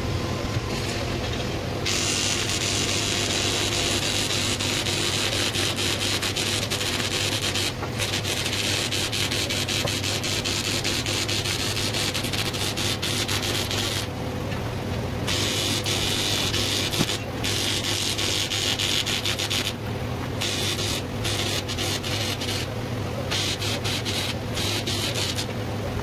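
TIG welding arc on aluminium tube, fed by a Miller welder set to about 175 amps with argon shielding: a steady crackling hiss over a low electrical hum. The arc starts about two seconds in and stops and restarts several times as the welder moves along the joints.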